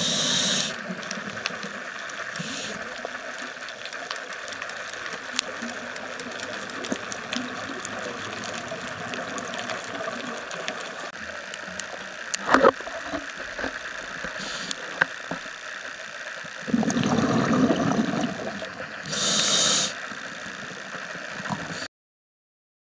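Underwater sound of a scuba diver breathing through a regulator: a few hissing breaths and a burst of exhaled bubbles, over a steady underwater hiss with scattered sharp clicks. It stops suddenly near the end.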